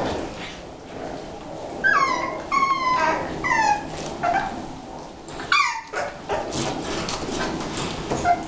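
Six-week-old bulldog puppies yelping and whimpering as they play-fight: a quick run of four short, falling yelps about two seconds in, another a little past the middle. Small scuffles and clicks of paws and mouthing run under the calls.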